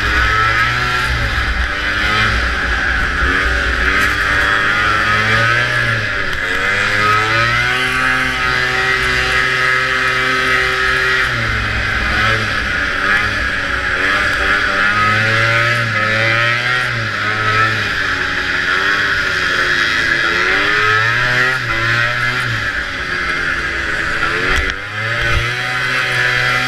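Vintage two-stroke racing snowmobile engine at high revs, its pitch repeatedly rising and falling as the throttle opens and backs off.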